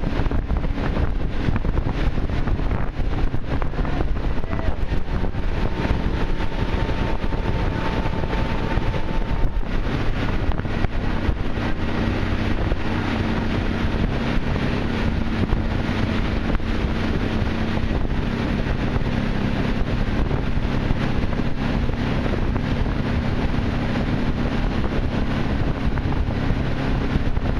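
A tow boat's engine running steadily at speed, with heavy wind buffeting the microphone.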